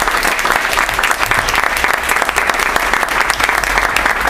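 Audience applauding: many hands clapping steadily and densely together.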